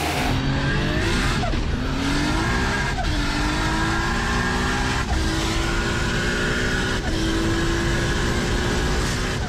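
Nissan Skyline R32 GT-R's turbocharged RB26 straight-six accelerating hard through the gears, heard from inside the cabin. The engine note climbs and then drops sharply at each upshift, four shifts in all, and runs fairly level near the end.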